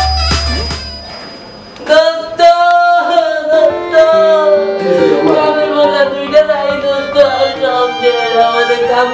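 Background music: an upbeat electronic track with a heavy bass beat stops about a second in, and after a brief lull a slow, emotional melody begins, with a held, wavering lead line over sustained chords.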